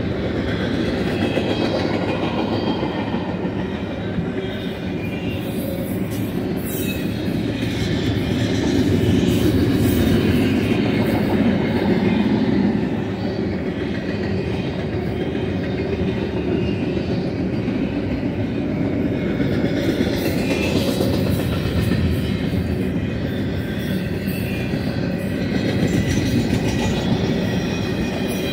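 Double-stack container train's well cars rolling past at close range: a steady noise of steel wheels on the rails, a little louder about nine to twelve seconds in, with faint high wheel squeal.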